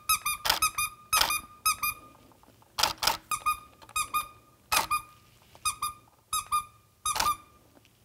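Squeaky plush dog toy squeezed in quick runs of short, high chirps. A few sharp clicks fall among them.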